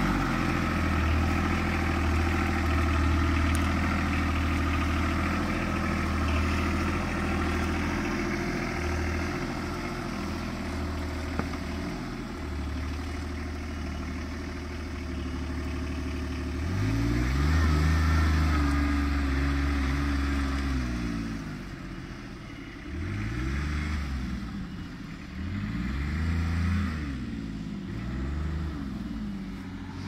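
Engine of a remote-controlled Kawasaki Mule utility vehicle running as it drives. It is steady at first and grows fainter. In the second half its pitch rises and falls several times as it revs up and eases off.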